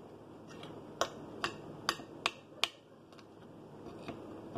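Metal fork clinking against a glass plate while cutting into food: five sharp clicks in under two seconds starting about a second in, with a few fainter taps before and after.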